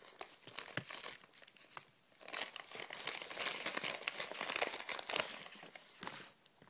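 Paper wrapping being unfolded and crinkled by hand to free a small keychain, a run of crackles that grows louder about two seconds in and stops shortly before the end.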